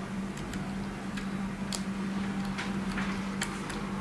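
Scattered light clicks and taps, about eight in four seconds, from a small plastic digital camera being turned and handled in the hands.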